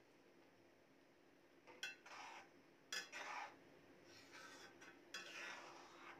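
Perforated steel ladle stirring grated bottle gourd in milk in a metal kadhai. It makes faint clinks against the pan and about four short scraping strokes, starting about two seconds in.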